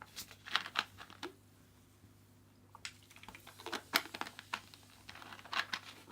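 Handling noise: scattered light clicks and crinkles in three short clusters, with quiet gaps between.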